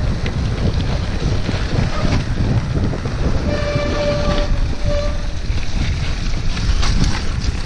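Mountain bike riding a muddy trail: wind buffeting the handlebar camera's microphone and the steady rumble of tyres and bike over rough ground. In the middle a wet disc brake honks twice, a longer squeal then a shorter one.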